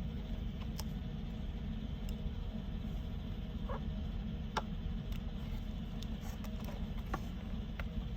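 Light, scattered clicks and taps of small plastic items being handled, about five in all, over a steady low hum.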